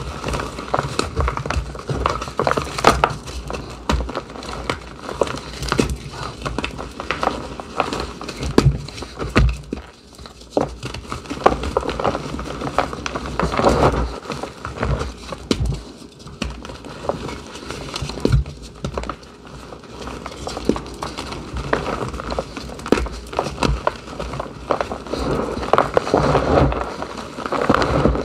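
Hands squeezing and crushing blocks of reformed gym chalk in a plastic tub: a dense, irregular crunching and crackling as the chalk chunks crumble into powder.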